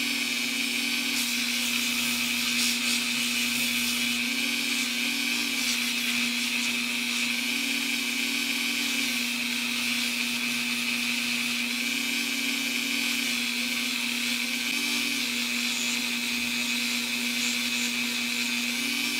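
Handheld rotary tool running steadily at a constant high speed with a polishing wheel, buffing a small die-cast metal toy engine part.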